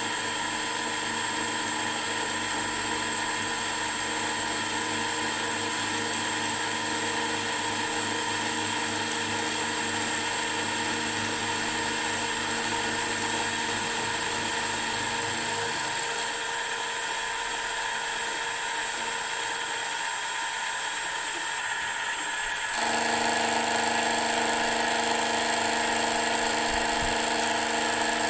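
Milling machine running an end mill through a finishing pass on the floor of a milled step: a steady whine and hum made of several fixed tones. About three-quarters of the way through, the mix of tones changes abruptly and a lower hum joins in.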